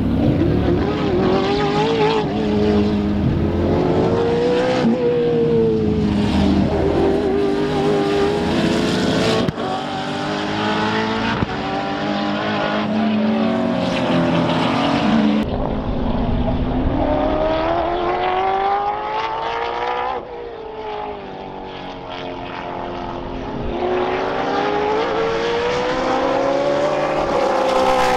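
Sports sedan race cars' engines at full throttle passing, the pitch climbing as they accelerate and dropping at each gear change, in several separate passes.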